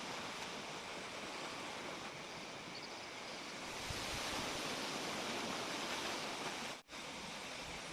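Steady, even hiss with no distinct events, growing a little louder about four seconds in and cutting out for an instant near the end.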